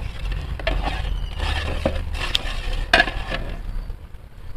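Metal cooking utensil knocking and clinking against a large pot several times, over a steady low rumble.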